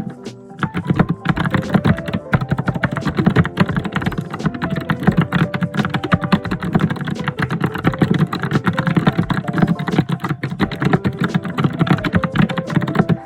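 Fast, vigorous typing on a computer keyboard: a dense, irregular run of key clicks that keeps going without pause and thins out right at the end.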